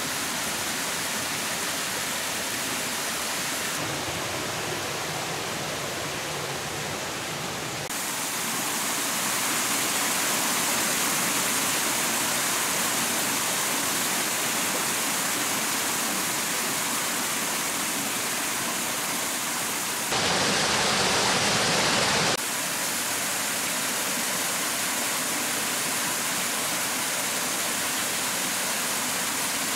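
Rushing water, a steady rush that shifts abruptly in tone and loudness several times, with one louder, brighter stretch about twenty seconds in.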